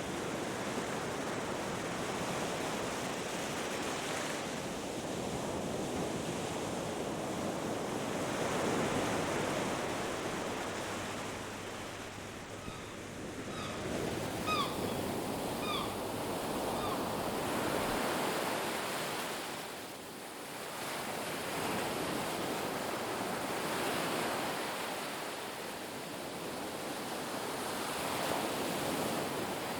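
Ocean surf breaking and washing up the beach in slow swells, rising and falling every few seconds. A few short high chirps from a bird come about halfway through.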